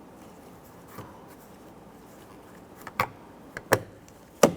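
Three sharp plastic clicks, the last the loudest, as the small plastic trim cover behind the interior door handle is pressed in and snaps into place.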